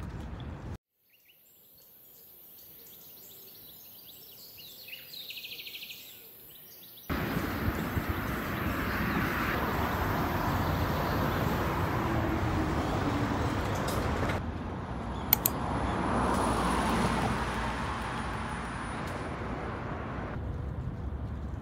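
Outdoor urban ambience with road traffic noise, in several short segments that cut abruptly from one to the next, with a much quieter stretch near the start.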